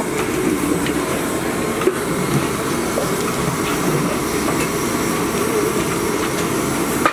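Long wooden paddle stirring and turning a heap of leafy greens in a large aluminium cooking pot, with a loud steady noise behind it.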